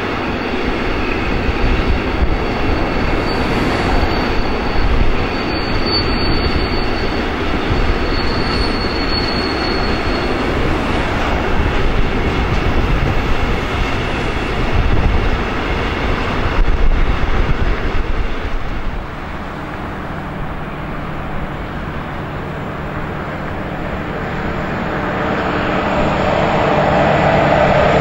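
Freight wagons rolling past on the rails, with thin high wheel squeals a few seconds in. In the last third a diesel locomotive's engine hum comes in and grows steadily louder as it approaches, hauling container wagons.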